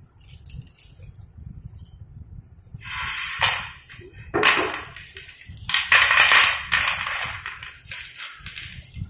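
Slate pencils clattering and rattling as hands scoop them out of a heap and drop them onto a plate. The clatter comes in several bursts starting about three seconds in, the loudest about halfway through.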